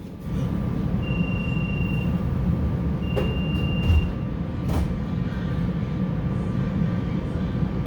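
Cabin noise inside a SEPTA Silverliner V electric commuter railcar: a steady low rumble from the train, with a thin high whistle heard twice, about a second each time, and a few faint clicks.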